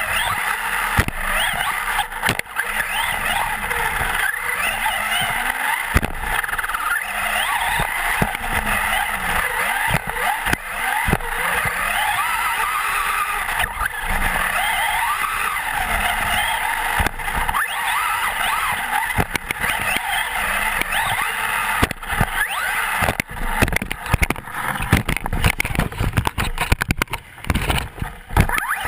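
Traxxas Slash 4x4 electric RC truck heard from its own onboard camera: the motor and drivetrain whine rising and falling with the throttle as the tyres run on dirt, with frequent knocks from bumps. Near the end comes a rougher run of clatters and landings.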